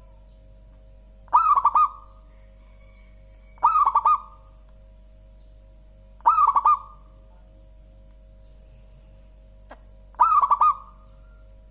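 Zebra dove (perkutut) cooing: four short phrases of rapid staccato coo notes, each about half a second long, a few seconds apart.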